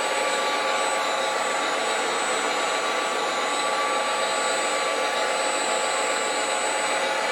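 Small electric motors and gearboxes of scale RC construction machines running with a steady whine that holds several fixed tones over a hiss.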